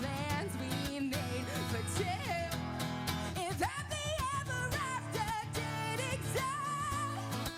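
Live pop song: a woman singing over guitar and a steady bass-and-drums band backing.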